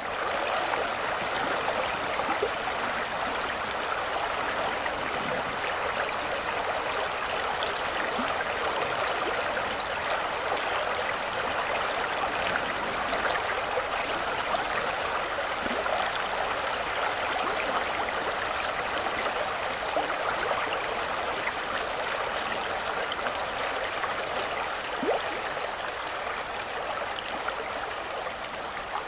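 Steady rushing of a shallow river flowing over stones, with faint small splashes and trickles, easing a little near the end.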